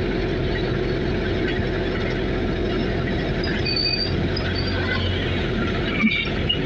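Steady engine and road noise heard from inside a moving vehicle, with short high squeaks about four and six seconds in and a brief knock about six seconds in.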